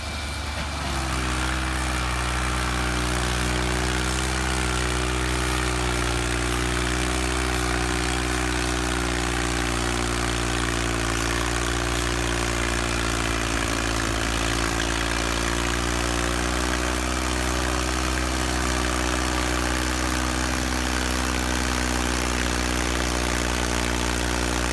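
Ford farm tractor's diesel engine running steadily at an even pitch while hauling an overloaded trailer of green fodder, heavy enough to lift the tractor's front wheels.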